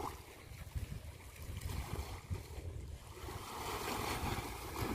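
Wind rumbling on the microphone over small waves washing against shoreline rocks. A louder wash of water swells about three seconds in and fades near the end.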